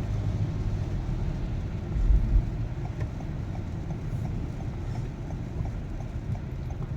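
Car engine idling, heard from inside the cabin, with steady road and rain noise, a brief low thump about two seconds in, and a faint regular ticking from about three seconds in.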